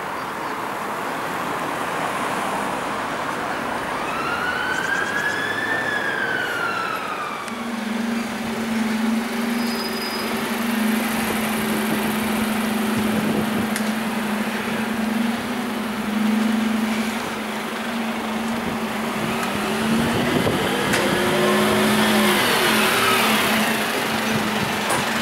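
An emergency-vehicle siren wails, rising and falling once about four seconds in and again, fainter and more tangled, near the end, over steady street noise. From about seven seconds a steady low drone from a heavy vehicle's engine sets in and holds.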